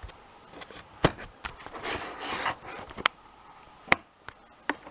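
Hands working on the inside of an opened PlayStation 4 console: four sharp clicks and knocks of hard plastic parts, with a short scraping rub about two seconds in.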